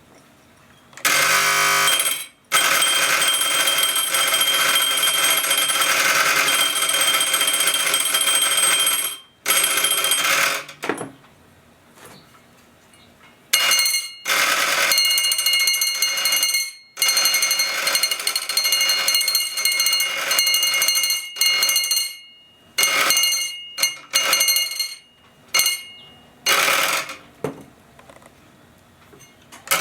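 Homemade electric doorbell, a hand-wound wire coil pulling a spring-metal clapper against a bell, ringing loudly in bursts: a long ring of about seven seconds, then several shorter rings of a second or two. It is running on solar panel power in full sun, which now gives it enough current to work.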